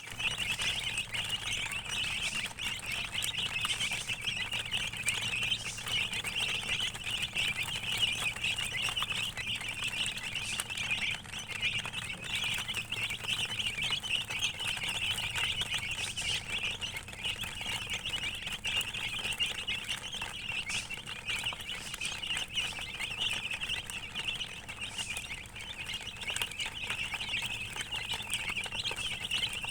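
Domestic chicks peeping continuously, many high-pitched chirps overlapping into a steady chorus.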